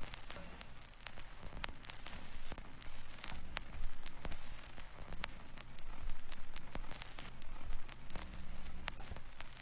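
Irregular crackling: scattered sharp clicks, several a second, over a steady low noise.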